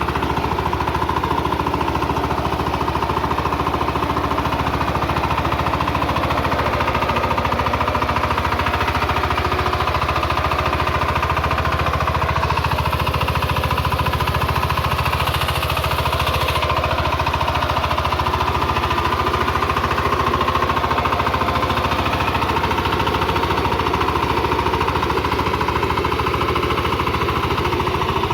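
Single-cylinder diesel engine of a VST Shakti 130 DI power tiller running steadily with a fast, even chugging.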